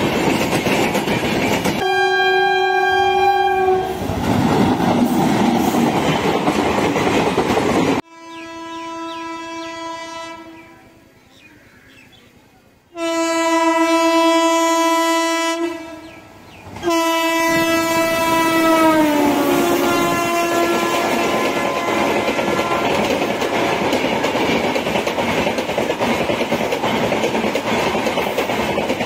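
Four blasts of a WAP-7 electric locomotive's horn, each a steady chord of a few seconds; the last slides down in pitch. Around them is the rumble and rail clatter of a passing train.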